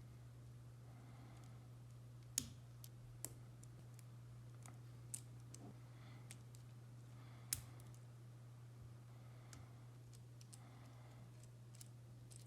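Faint, scattered clicks of LEGO Technic plastic pieces being handled and pressed together, with two sharper clicks standing out about two and a half and seven and a half seconds in, over a steady low hum.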